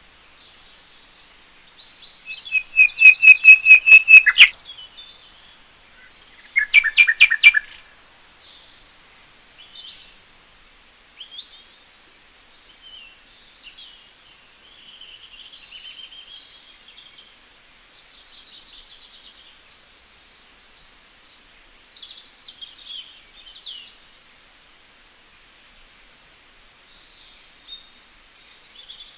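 Wild birds calling and singing: a loud, fast run of about ten repeated high notes around two seconds in, a shorter run near seven seconds, then scattered fainter chirps and calls from several birds.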